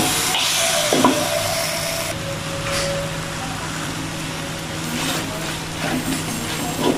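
Chicken pieces and spice paste frying in an aluminium wok, sizzling as they are stirred, with a spatula scraping and knocking against the pan a few times.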